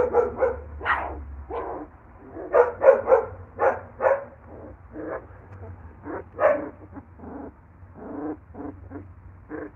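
A litter of newborn puppies, eyes just opening, crying in a run of short squeals and whines. There is a lull about two seconds in, and the cries grow fainter in the second half.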